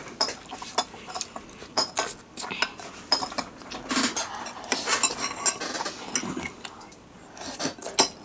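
Metal spoon clinking and scraping against a glass bowl in quick, irregular strikes while scooping up fried rice.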